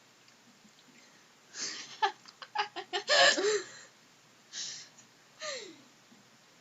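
Laughter: a quick run of short, breathy giggles starting about one and a half seconds in and loudest around three seconds, followed by two short breathy laughs near the end.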